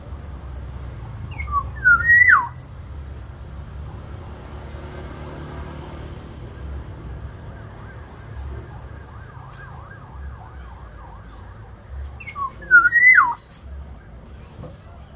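Black-naped oriole giving its fluty whistled call twice, about ten seconds apart: each phrase is a few short rising notes ending in a loud note that slides down in pitch. Soft warbling notes come between the two calls, over a low steady hum.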